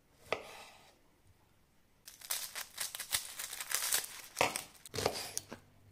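Kitchen knife cutting fresh tomatoes and a red onion on a wooden chopping board: a single knock, a quiet pause, then a fast run of crisp cuts and knocks for about three and a half seconds, heavier near the end.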